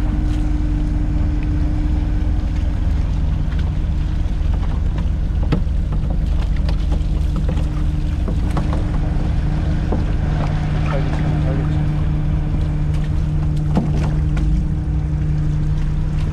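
Steady low machine hum holding two low tones, the running of an idling boat engine or the water pumps at a fish-auction quay. Water splashes and churns in the live-fish tubs, with a few short knocks from handling tubs and nets.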